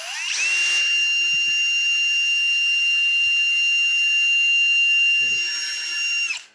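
Electric drill spinning up with a rising whine, then running at a steady high whine for about six seconds as it twists silver wire into twist wire, and stopping shortly before the end.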